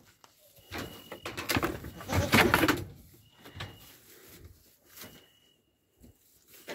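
Rustling and scuffing as a young goat kid is handled and moves about on straw, loudest about two to three seconds in. A faint, thin high chirp repeats every second or two behind it.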